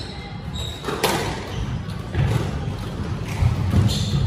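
Squash rally: the ball smacking off racquets and walls with sharp hits about a second in and again near the end, with shoes squeaking briefly on the wooden court floor.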